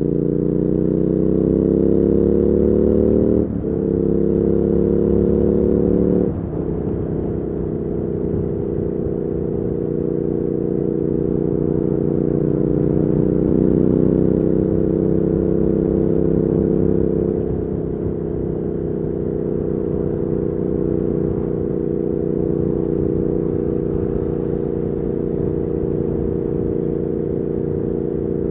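2019 Triumph Speed Twin's 1200 cc parallel-twin engine through a Weslake Shorty Pro exhaust, pulling hard with rising revs and shifting up twice in quick succession, a few seconds in and again about six seconds in. It then settles into a steady cruise, easing off briefly before running on at an even pitch.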